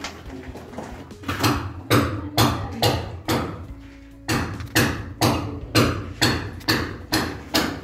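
A run of sharp, evenly spaced knocks, about two a second, starting about a second and a half in, with a pause of about a second in the middle.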